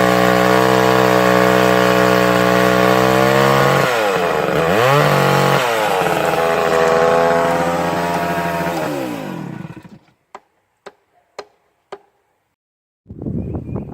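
Two-stroke chainsaw running at high speed. About four seconds in its pitch dips sharply and recovers, then it winds down and stops near ten seconds. A few light clicks follow.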